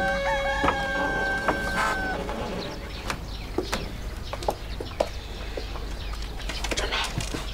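A rooster crows once, a call of about two seconds with a wavering pitch, followed by scattered short clicks and knocks.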